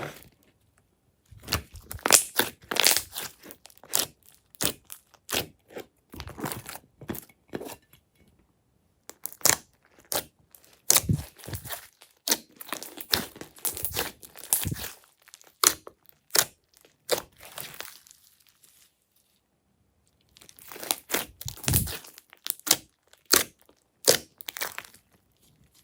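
Glossy slime being squished, stretched and pulled apart by hand: irregular bursts of sticky, crackly tearing sounds with short pauses between handfuls.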